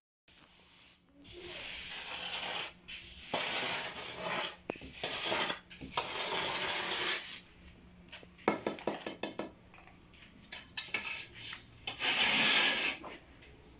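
Cement finishing tool scraping and smoothing wet cement in a series of long strokes, with a cluster of light clicks and taps between them, as the surface is worked to a smooth finish.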